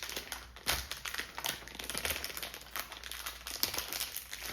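Packaging crinkling and rustling in quick, irregular crackles and ticks as a small blind-box toy is unwrapped.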